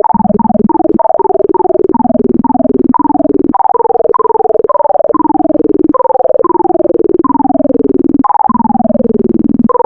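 Sonified insertion sort: a rapid stream of synthesized beeps, one tone per array access, each run stepping down in pitch as an element is shifted back into place among the sorted ones. The runs grow longer as the sort goes on.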